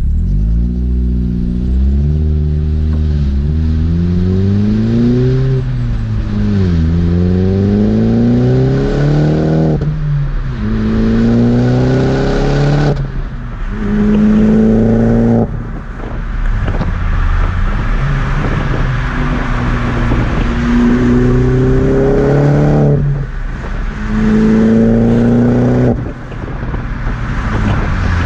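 Opel Corsa OPC's 1.6-litre turbocharged four-cylinder, with an aftermarket downpipe and intake, heard at the exhaust under hard acceleration. The pitch climbs with the revs and breaks off several times as the gears change, over a steady rush of wind and road noise.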